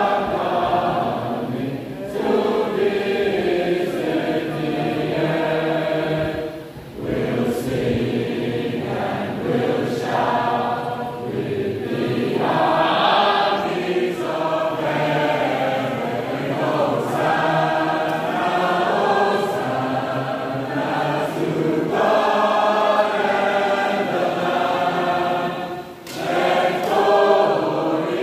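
Large mixed choir of men and women singing together, with short breaks between phrases about seven seconds in and again near the end.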